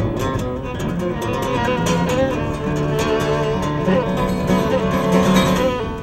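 Violin and strummed acoustic guitar playing a tune together: the guitar strums steadily under a bowed violin melody.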